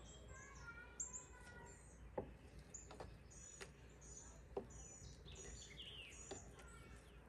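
Faint birds chirping: short high chirps repeated every second or so, with a few soft clicks of a knife against a plastic cutting board.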